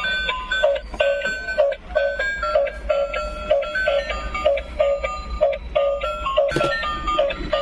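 Battery-operated ladybug gear toy playing its electronic tune: a quick melody of beeping notes over a pulse about twice a second. There is a knock about six and a half seconds in.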